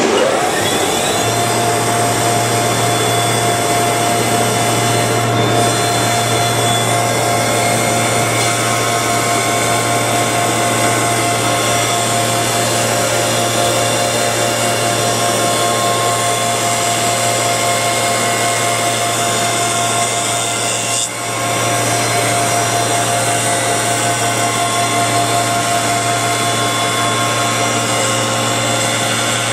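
Double-sided lamella edge-milling machine starting up: its motors spin up with a rising whine in the first second, then run steadily with a low hum and a higher whine while its cutters mill the edges of wooden slats fed through at low speed.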